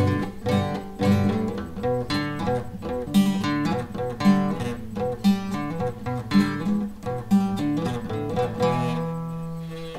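Acoustic guitar played alone in a rhythmic picked pattern of notes and chords, ending on a held chord that rings out near the end.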